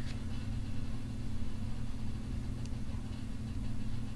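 Steady low hum with a faint hiss, the background noise of the recording.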